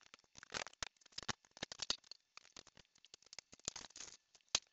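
Irregular clicks, knocks and rattles of metal parts as a Shopsmith Mark V multi-tool is unlocked and tilted up from its horizontal setup into the vertical drill-press position.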